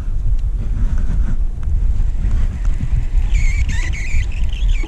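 Wind buffeting the microphone in a steady low rumble, with a brief higher, wavering sound for about a second and a half near the end.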